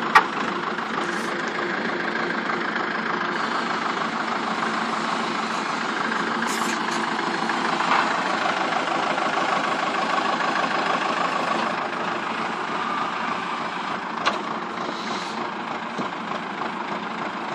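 Claas tractor's diesel engine running steadily at low revs, with a couple of sharp clicks.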